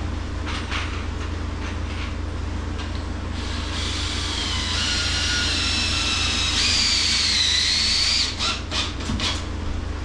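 Power drill driving a screw into pressure-treated wood: a high motor whine for about four seconds, stepping up in pitch partway, then a few sharp clicks. A steady low hum runs underneath.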